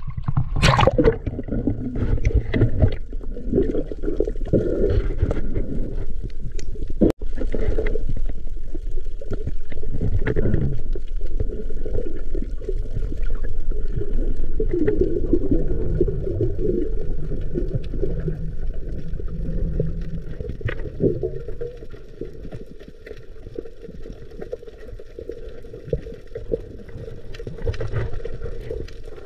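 Low, muffled water sloshing and gurgling, with a brief break about seven seconds in and a quieter stretch near the end.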